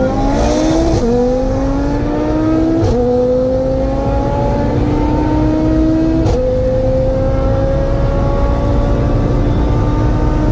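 Built Audi TTRS turbocharged five-cylinder, big-turbo kit on E85, at full throttle from inside the cabin: the engine note climbs steadily and drops at three upshifts, about one, three and six seconds in, with a sharp crack at the last two shifts.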